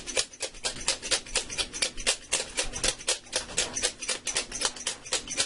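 Pepper mill grinding cracked pepper: a fast run of dry, crunchy clicks, several a second, without a break.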